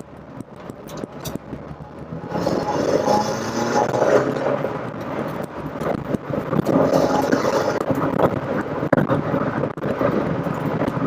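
The Rover Metro's 1.8 K-series VVC engine pulls under acceleration, heard from inside the cabin along with road and wind noise. It picks up about two seconds in, dips briefly about halfway, then builds again.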